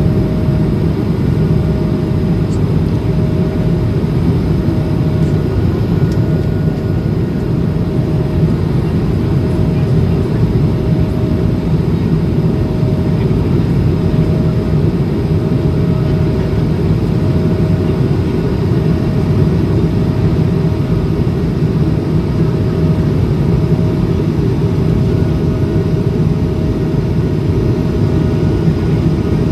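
Steady in-flight noise of an Airbus A220-300 and its Pratt & Whitney PW1500G geared turbofan engines, heard as an even low rumble with a faint, slightly wavering hum above it.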